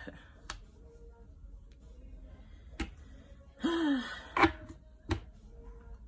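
Tarot cards being laid down and tapped into place on a cloth-covered table: a few sharp clicks spread through, the loudest about four and a half seconds in, just after a short breathy noise.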